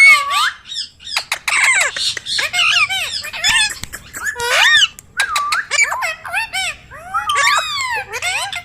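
Indian ringneck parakeet squawking and chattering: a rapid string of short, shrill calls that sweep up and down in pitch, with hardly a gap.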